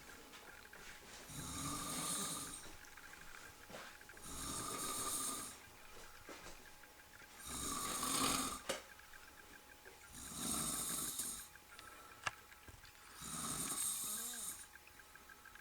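A middle-aged man snoring in his sleep after a night of drinking, with one long snore about every three seconds, five in all.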